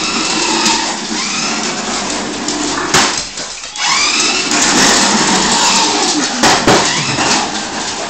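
Small electric motor of a remote-control toy car whirring, revving up and down in spurts, with a short stop about halfway and a few sharp knocks.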